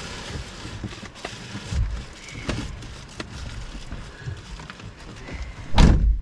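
Car driving on a rough, muddy dirt track, heard from inside: low rumble with irregular knocks and rattles, and one loud thump about six seconds in.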